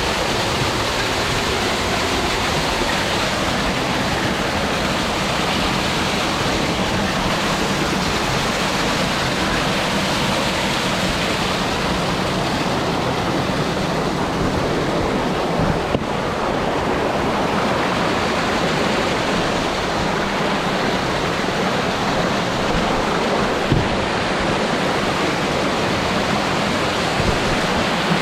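Mountain waterfall, water falling and rushing in a steady, unbroken roar, with a couple of faint brief knocks.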